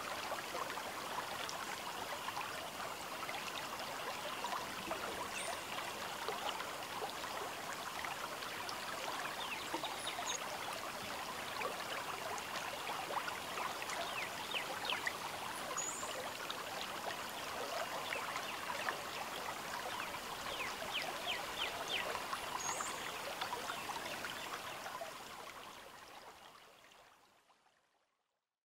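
Ebro river water running and trickling along the bank, a steady hiss with a few brief high chirps over it; it fades out near the end.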